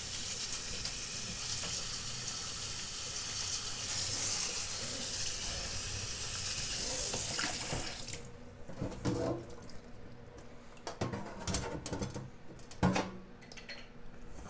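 Hot water running from a kitchen tap onto a dishwasher filter in the sink, shut off abruptly about eight seconds in. After that, a few scattered light knocks and clicks.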